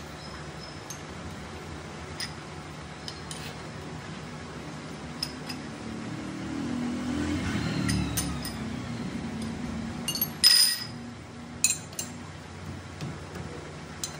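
Manual metal lathe running with a steady low hum that swells for a couple of seconds midway, under scattered metallic clinks and one louder ringing clink about ten seconds in.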